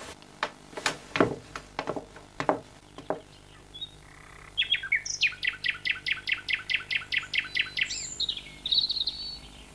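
Birdsong: scattered sharp chirps, then from about halfway through a fast run of repeated high chirps, about five a second, ending in a few higher calls.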